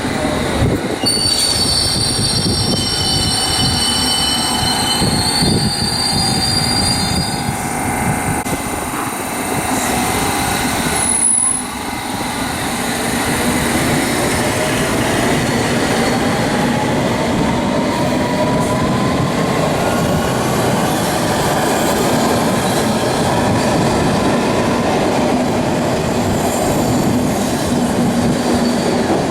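Train at a station: high-pitched wheel squeal for the first several seconds over rail rumble, then after a short break a motor whine rising steadily in pitch as a train pulls away and gathers speed.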